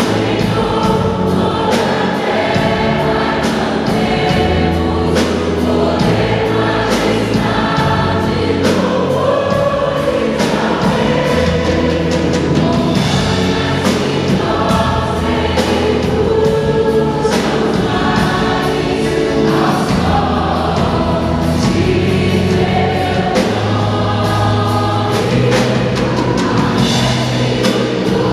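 Live contemporary worship music: a group of women singing a Portuguese-language praise song in unison and harmony over a full band, with drum kit, bass, guitars and keyboard, the drums keeping a steady beat.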